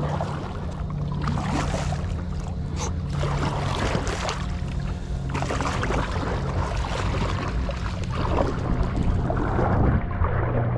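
Double-bladed paddle strokes from an Epic V7 surf ski, the blades dipping and splashing in the water in a steady, regular rhythm.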